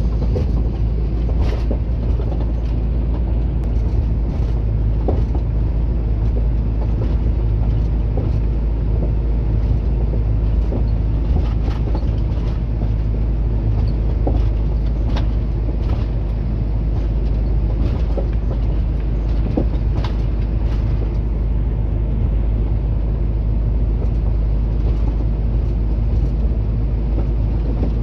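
Heavy truck's diesel engine and road noise heard inside the cab while driving: a steady low drone with scattered light clicks and rattles.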